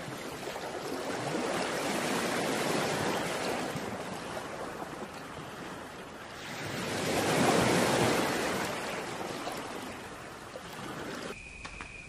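Ocean surf washing onto a sandy beach: a steady rush of water that swells twice, the second swell louder and peaking about seven to eight seconds in, then fading. It cuts off shortly before the end.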